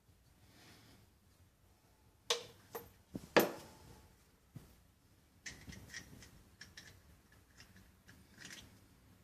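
Hands handling plumbing parts under a kitchen sink: a few sharp knocks and clicks about two to three seconds in, then lighter clicks and taps.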